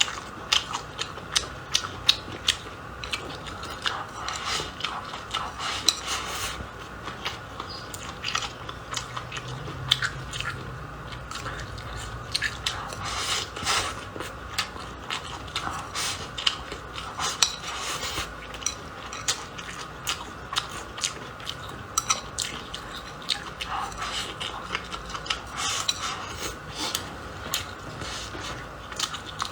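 Close-up eating sounds: chewing and biting of sour-spicy chicken offal over rice, with frequent small clicks of utensils against a bowl.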